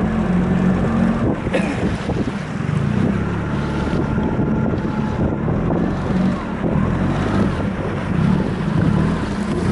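A motorboat under way: its engine gives a steady drone, with water rushing past the hull and wind buffeting the microphone.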